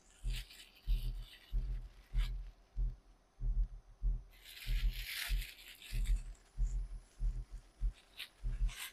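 Clear plastic bag crinkling and rustling as crab legs are handled out of it, loudest from about four to five and a half seconds in, with a few short clicks near the end. Under it runs a low, irregular thumping about twice a second.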